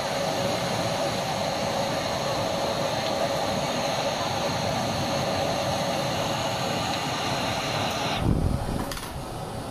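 Firewood kiln firing: a steady rushing roar with a thin high whine over it, cutting off suddenly about eight seconds in with a brief low rumble.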